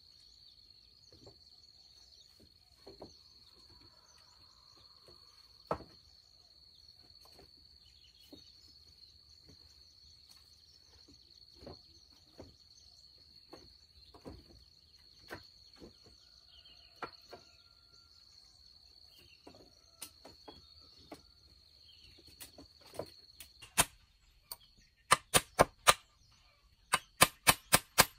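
Insects keep up a steady, high-pitched drone, with scattered light knocks and clicks of handwork. Near the end, two fast runs of loud, sharp strikes come at about six a second.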